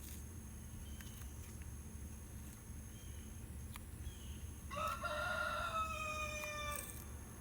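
One long pitched animal call, most likely a bird, starting about two-thirds of the way in and lasting about two seconds, falling slightly in pitch near its end. A low steady hum and a few faint clicks run under it.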